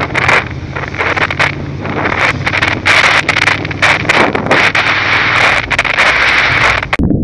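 Wind buffeting the microphone of a motorcycle rider filtering past stopped traffic, in loud gusts over the steady low hum of the motorcycle's engine. Near the end the wind noise cuts off suddenly, leaving a muffled low sound.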